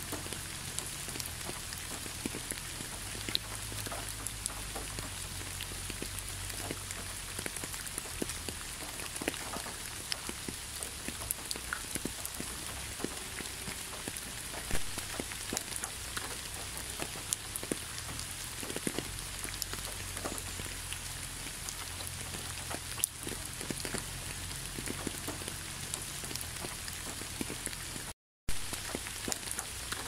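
Steady rain falling on a wet asphalt road strewn with fallen leaves: a constant hiss with many separate drop impacts ticking through it. The sound cuts out for a split second near the end.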